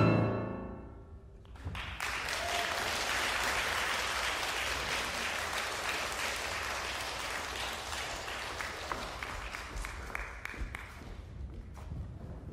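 The final chord of cello and piano ringing away, then an audience applauding from about a second and a half in, thinning out near the end.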